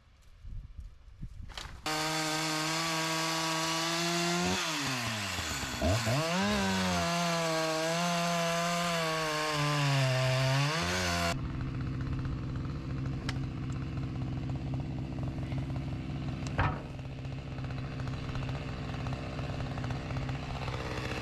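Sawmill's small engine running hard as it saws through an ash log, cutting in suddenly about two seconds in. Its pitch dips sharply and recovers as it bogs under load in the cut, then it settles into a steadier, lower run with a couple of sharp clicks.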